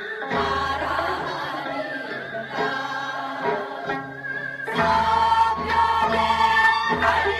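A chorus of women singing a Gyeonggi folk song (gyeonggi sori) together, growing louder about five seconds in.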